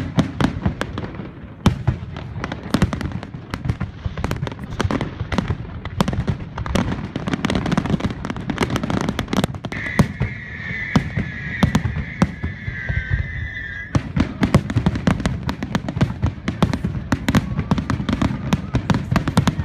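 Fireworks display: a rapid, continuous run of bangs and crackling bursts. In the middle a high, steady whistle-like tone sounds for about four seconds.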